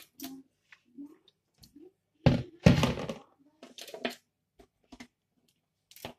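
Scattered small knocks and clicks, with two louder thuds about two and a half seconds in, from things being handled at a stainless steel kitchen sink.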